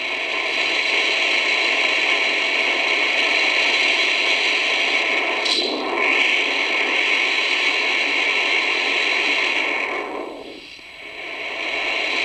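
Static hiss from the Lowe HF-225 Europa shortwave receiver's speaker as it is tuned across the 31 m band between stations. The hiss breaks briefly about five and a half seconds in and fades down near the end before coming back.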